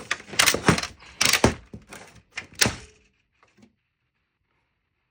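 Hard plastic knocks, clicks and scrapes from a metal pick prying at small plastic pieces of an Xbox 360 console's case: a run of sharp knocks over about three seconds, three of them louder than the rest.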